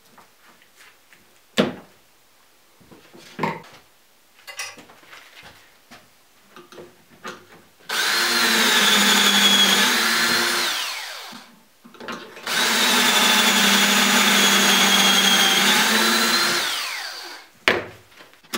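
Cordless drill (Craftsman 19.2-volt) boring pocket holes through a Kreg pocket-hole jig into a board: two steady runs of about three and four seconds, each spinning down at the end. A few knocks and clicks come before them.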